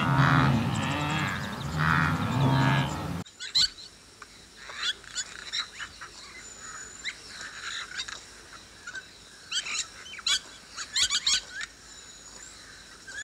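Blue wildebeest (gnu) giving repeated low calls for about three seconds. After an abrupt change, scattered short bird chirps and calls follow, with a few thin high whistles.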